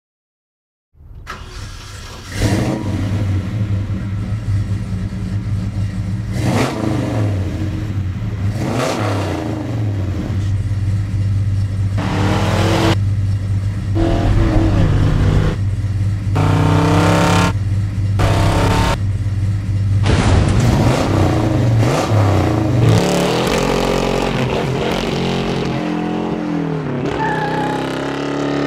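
Chevrolet 409 V8 engine of a custom 1953 Chevy pickup, rebuilt with a bigger cam and heads, running loud and revved in repeated throttle blips, then rising and falling in pitch as the truck drives. Sound starts about a second in.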